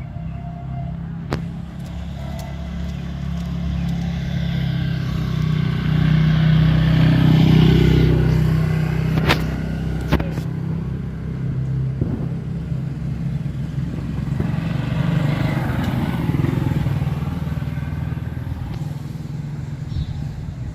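Motor vehicles on a road: a steady engine hum that swells as vehicles pass, loudest about seven seconds in and again about sixteen seconds in. A few sharp clicks sound in between.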